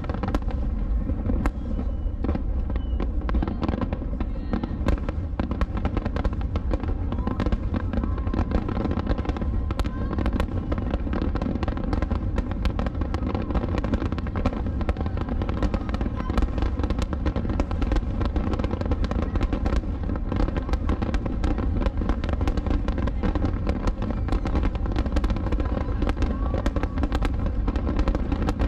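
Fireworks barrage: aerial shells bursting in quick succession, many sharp reports a second over a steady low rumble, with no let-up.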